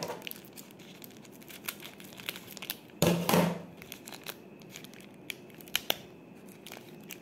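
White wrapping paper crinkling and rustling as hands unwrap a small accessory. A louder burst of crumpling comes about three seconds in, and a couple of sharp clicks follow near the end.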